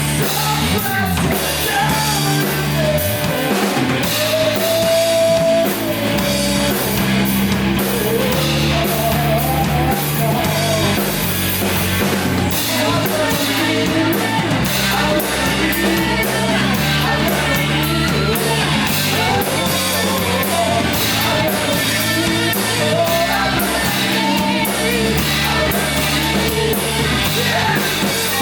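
Five-piece heavy rock band playing live: distorted electric guitars, bass guitar and a drum kit with constant cymbals, under a bending melody line.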